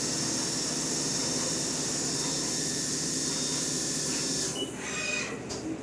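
Haas CNC milling machine running while machining aluminum: a steady hiss with a steady whine. About four and a half seconds in, the sound breaks up and dips.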